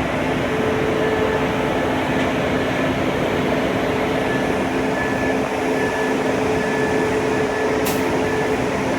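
Steady machine noise: an even hum with a constant low drone, and a faint high tone that comes and goes.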